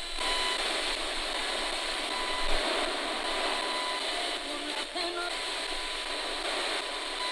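Spirit box, a radio scanning rapidly through stations, giving a steady hiss of static with a faint steady tone and a few short snatches of sound about five seconds in.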